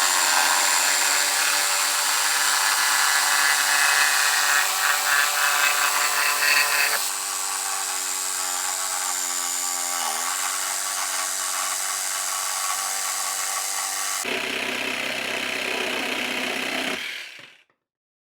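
Tacklife one-handed cordless reciprocating saw with a Bosch blade, its motor running and the blade sawing in a steady whine. The sound changes abruptly about 7 seconds in and again about 14 seconds in, then dies away near the end.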